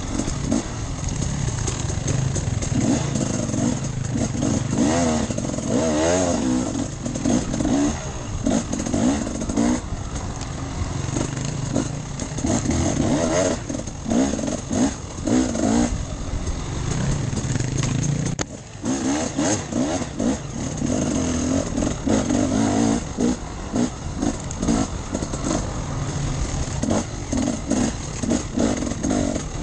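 Enduro motorcycle engine being ridden hard off-road, revving up and down with constant throttle changes, with a brief lull about eighteen seconds in.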